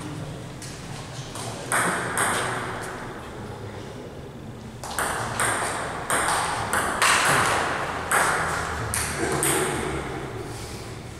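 Table tennis ball clicking off the paddles and table: a few single ticks in the first few seconds, then a quick rally of hits and bounces from about five seconds in, each tick trailing off in the hall's echo.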